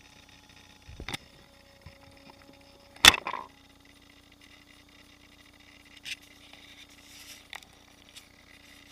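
Radio-controlled monster truck being jostled: a few plastic clicks and knocks, the loudest a sharp knock about three seconds in as the onboard camera's view swings from the ground to the sky, over a faint steady electrical whine.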